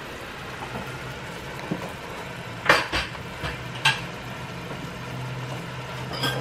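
Beef simmering in a sugar, soy and oyster-sauce seasoning, bubbling and sizzling steadily in a frying pan as the sugar melts into the sauce. A few sharp clicks come about three seconds in.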